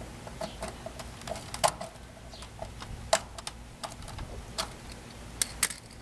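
Irregular small clicks and taps of a screwdriver tightening the line-voltage terminal screws on an air-conditioner contactor, with a couple of sharper clicks.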